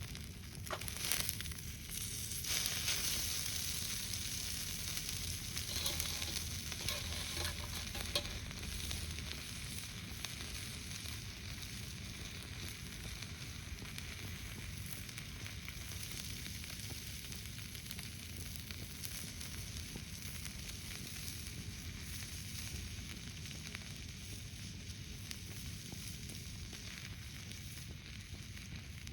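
Marinated skirt steak sizzling on a hot iron griddle plate. The sizzle is louder and more crackly over the first several seconds, then settles into a steady hiss.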